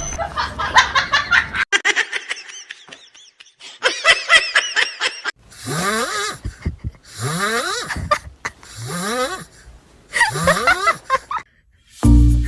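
Laughter: a person laughing in fits, with four long bursts of laughing in the second half.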